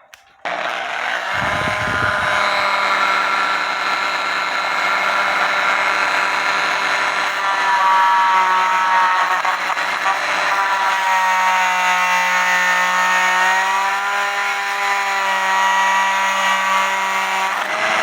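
Master Mechanic oscillating multi-tool switched on about half a second in and running steadily, its blade vibrating back and forth as it cuts through the glue holding a cuckoo clock bellows' bottom plate. Its whine drops in pitch for a few seconds past the middle as the blade bears into the work, then comes back up.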